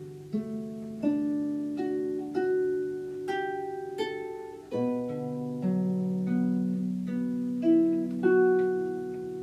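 Harp music: a slow melody of plucked notes and chords, a new pluck about every 0.7 seconds, each note ringing on under the next.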